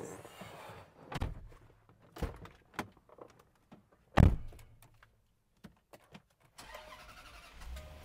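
Thumps and knocks of someone getting into a Land Rover Discovery 4, with one loud door-slam thump about four seconds in. About six and a half seconds in, the engine starts and settles into a steady idle.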